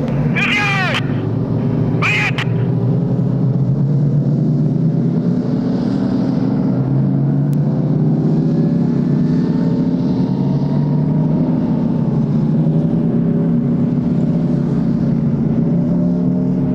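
Several Type 90 tanks driving past, their engines running with slowly drifting pitch over a steady rumble of tracks. Near the start come two brief high squeals that fall in pitch.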